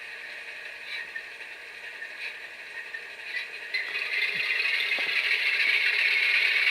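Tsunami sound decoder in an HO-scale Athearn U50 model locomotive playing the start-up of its two GE diesel engines through the model's small speaker. The noisy start-up grows louder about four seconds in. The sound sits mostly high and thin, with little bass.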